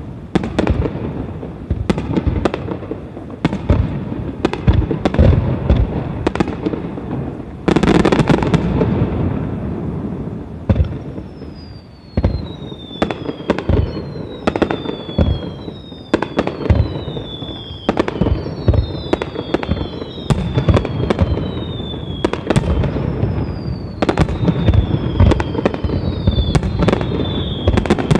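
Fireworks display: aerial shells bursting one after another, loud bangs over a steady rumble and crackle, with a big long rush about eight seconds in. From about halfway on, many whistling fireworks sound falling whistles, one after another and overlapping.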